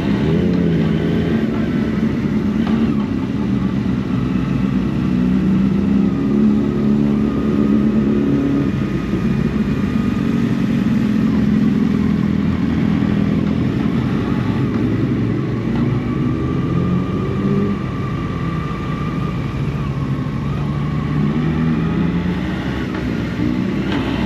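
Motorcycle engines running and revving, their pitch rising and falling again and again.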